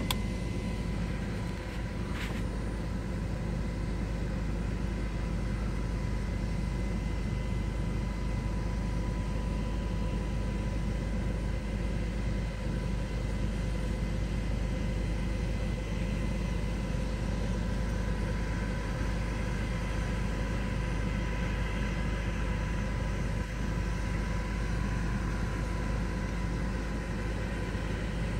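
Steady engine rumble with a thin steady whine above it, and a single click about two seconds in.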